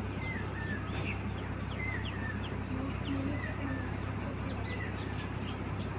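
A houseboat's engine running with a steady low hum, with birds giving repeated short chirps over it.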